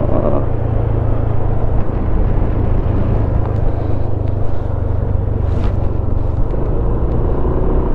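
Yamaha Smash underbone motorcycle's single-cylinder four-stroke engine running steadily: a constant low engine note with a rushing noise over it.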